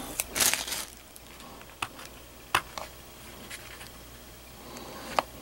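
Plastic DVD case being handled and moved about: a short rustle near the start, then a few light, separate clicks and taps.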